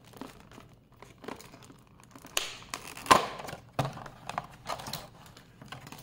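Stiff clear plastic blister packaging being pried open and handled: irregular crinkling and crackling with a few sharp clicks, loudest about halfway through.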